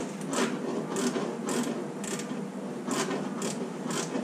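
Ratcheting 10 mm box wrench running a flange nut down a stud, its pawl clicking in short bursts roughly twice a second with each swing of the wrench.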